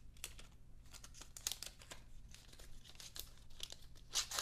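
Clear plastic protective film being peeled and crinkled off a new Apple dual USB-C power adapter: irregular crackles and a tearing rustle, loudest near the end.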